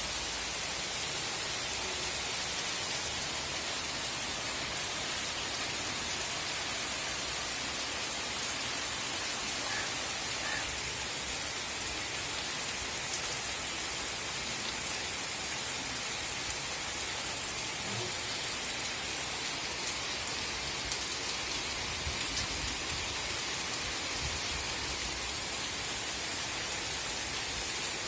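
Heavy rain pouring steadily on trees and roofs, a constant even hiss.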